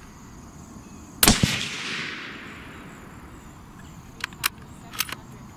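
A single shot from a suppressed Savage Ultralite rifle in 280 Ackley Improved: one sharp report with a short tail dying away over about a second. A few light clicks follow about three seconds later, with crickets chirping steadily underneath.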